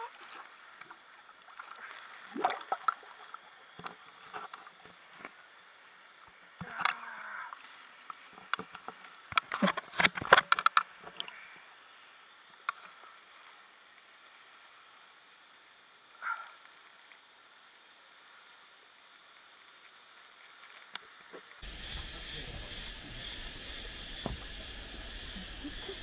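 Water splashing and short bursts of voices as people wade in a waterfall's plunge pool, loudest in a cluster of splashes about ten seconds in. Near the end it changes abruptly to a steady hiss of forest insects.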